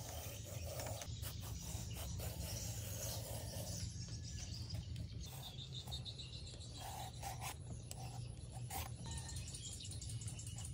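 Blue Y-peeler blade scraping the skin off a long purple eggplant in short repeated strokes, over a low steady hum.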